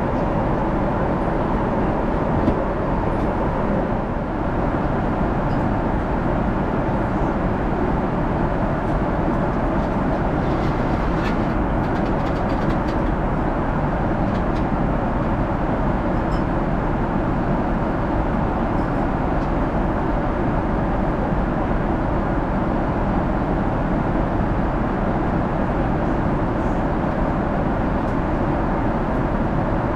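Steady in-flight cabin noise of a Boeing 777-300ER at cruise, an even rushing of engine and airflow noise. A few faint light clicks come near the middle.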